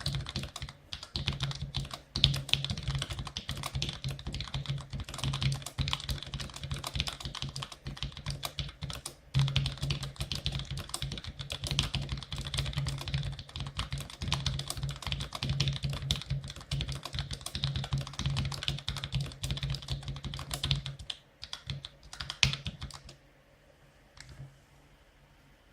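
Fast, continuous typing on a Cherry G84-4100 keyboard with Cherry ML mechanical switches, a dense stream of key clicks. The typing thins to a few scattered keystrokes and stops near the end.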